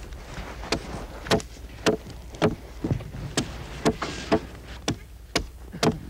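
Hatchet chopping at an upright wooden pole: a steady series of sharp blows, about two a second.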